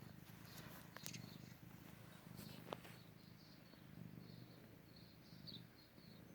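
Near silence: a cat purring softly in waves, with faint short bird chirps from a bird video playing, more of them in the second half, and a couple of small clicks.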